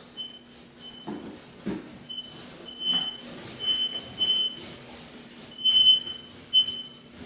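Paint roller on an extension pole squeaking with short high chirps, about a dozen times, as it rolls paint onto a wall.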